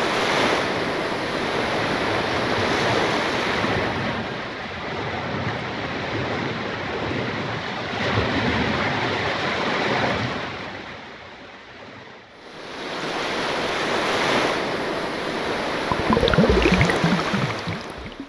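Ocean surf: waves rolling in and drawing back in slow swells, with a lull about two-thirds of the way through. Near the end a few short rising tones and a low thump sound over the surf before it fades away.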